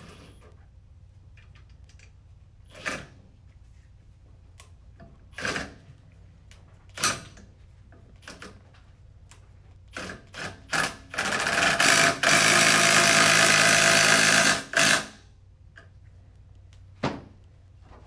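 Cordless power tool spinning the threaded rod of a pulley-spreading tool to open a CVT pulley so the drive belt can be slid on. It runs in a few short blips, then steadily for about four seconds past the middle, with one more short blip near the end.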